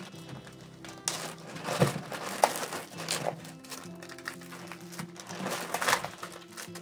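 Background music with a steady melody, over packaging crinkling and rustling in two stretches as items are unboxed.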